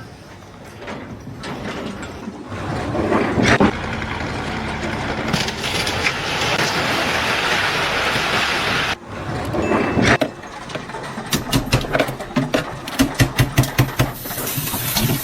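Steady machine noise, like an engine running, that cuts off suddenly about nine seconds in, followed near the end by a quick run of sharp knocks.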